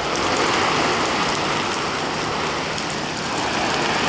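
Garden hose nozzle on its shower setting spraying water onto a Tyvek tarp: a steady hiss and patter of water striking the sheet.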